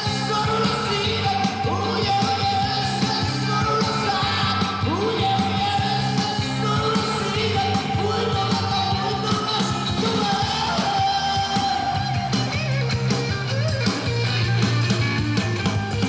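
Rock band playing live on stage: electric guitars, bass and drums, with a man singing into the microphone.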